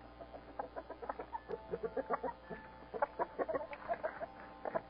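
A flock of domestic chickens clucking: many short clucks from several hens overlapping, busiest about three seconds in.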